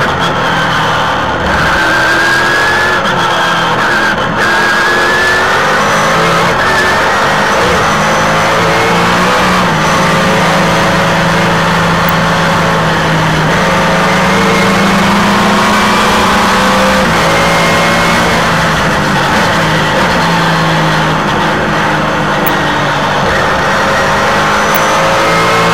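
Race car engine heard onboard at racing speed, its note rising and falling with throttle and gear changes.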